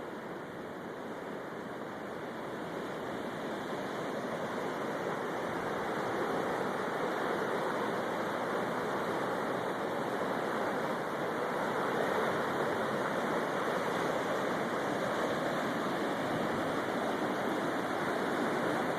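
Floodwaters of the St. Vrain rushing steadily, growing a little louder over the first few seconds and then holding.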